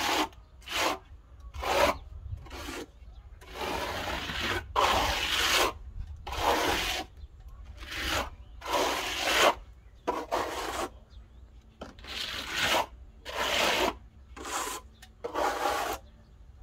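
Steel plastering trowel scraping a thin skim coat of render primer across cement board, in repeated irregular strokes, some short and some about a second long.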